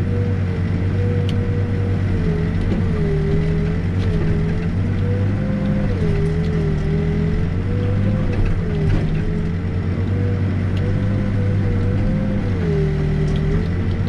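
Backhoe's diesel engine running under load, heard from inside the cab, with a whine whose pitch keeps dipping and rising as the boom and bucket dig a footing trench.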